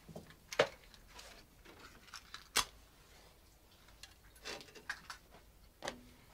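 A few sharp metallic clicks and knocks with small handling sounds between them, as equipment is handled in a steam locomotive cab. The two loudest knocks come about two seconds apart early on, and lighter clinks follow near the end.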